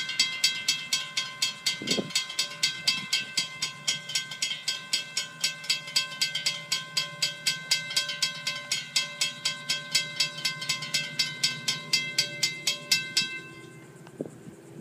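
Railroad crossing bells ringing in a steady rapid beat, about four or five strokes a second, while the crossing gates come down; the ringing stops suddenly near the end as the gates reach the lowered position. A low steady hum lies underneath.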